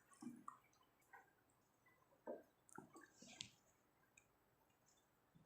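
Near silence with a few faint, scattered soft clicks and squishes.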